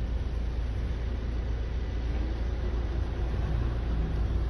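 Steady low rumble of a car engine idling, heard from inside the car.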